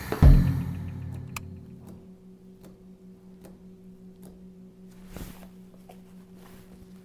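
Edited-in sound effects: a loud, deep booming hit that rings out and fades over about two seconds, followed by a clock ticking steadily a little faster than once a second, with a short whoosh about five seconds in.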